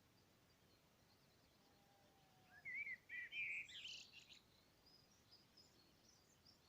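Faint songbird chirping and twittering: a short run of high chirps in the middle, with near silence either side.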